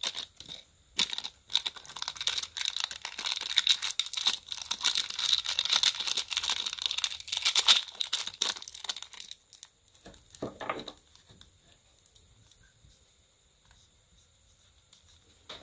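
A few sharp clicks, then about eight seconds of dense crackling and crinkling as a Zippo lighter is handled. It dies away about nine and a half seconds in, with one short rustle after.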